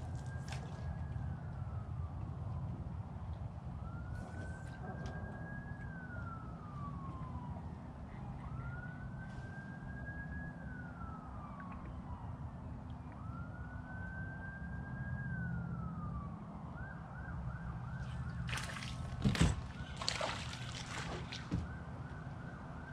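An emergency-vehicle siren wailing: it rises, holds and falls about every four seconds, then switches to a faster yelp near the end. A couple of sharp knocks land about three seconds before the end, over a steady low hum.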